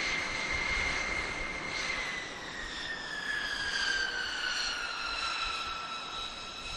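Turbofan engines of a B-2 Spirit stealth bomber (four GE F118 engines) running at low power as it taxis: a steady rushing with a high whine that, about two seconds in, begins slowly falling in pitch.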